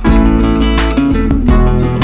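Background music led by strummed acoustic guitar, playing steadily.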